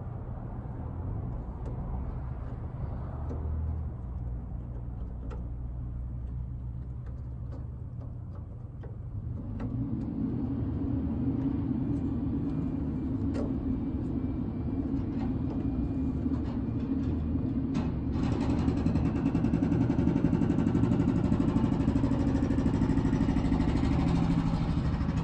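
A motor vehicle engine running steadily. Its drone deepens and grows louder about ten seconds in and again around eighteen seconds. A few light clicks sound over it.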